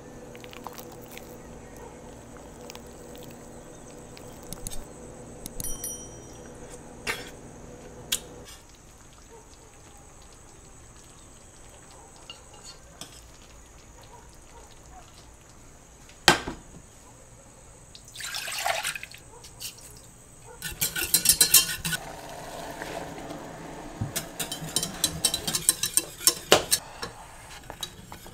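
Close-up kitchen sounds: soft wet squishes of tender braised veal shank under a knife, a single sharp metal clink against a stainless steel pan, a brief liquid splash, then a whisk rattling quickly against a metal pot of polenta near the end.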